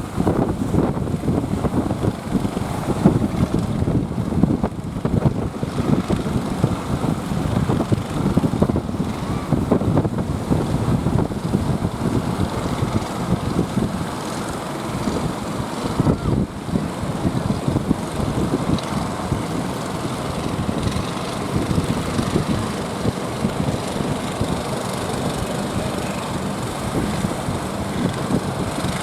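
Boat engine running steadily under rushing water and wind noise as the hull pushes through sea waves.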